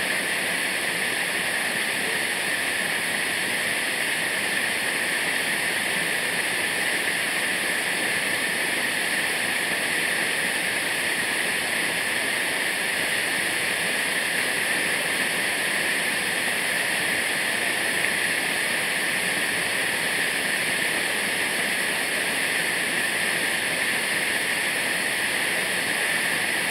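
Waterfall, a steady, unbroken roar of falling water.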